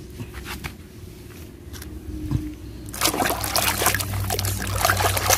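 Water sloshing and splashing in a basin as a hand swishes and scrubs a small toy vehicle under the water, starting loudly about three seconds in after a quieter stretch with a few light clicks.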